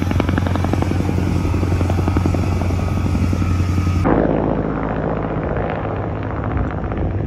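Helicopter running overhead: a steady low engine hum with rapid rotor chopping. About four seconds in the sound changes abruptly and turns duller, losing its high end, while a similar chopping goes on.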